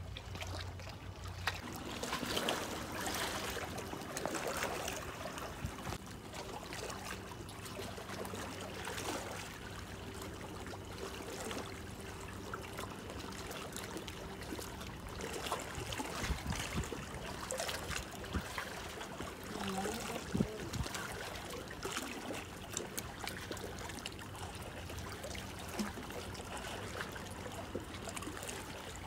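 Small waves lapping and trickling among shoreline rocks, with irregular little splashes and gurgles, over a faint steady low hum.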